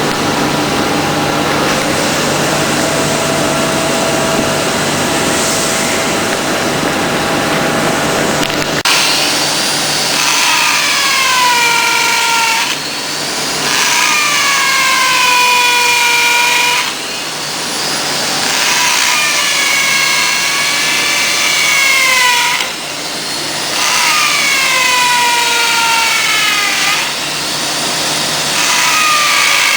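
Steady machine hum for about the first nine seconds, then a hand-held power tool run in repeated bursts of about four seconds each, its whine dropping in pitch as it is pressed into the work and rising again as it eases off.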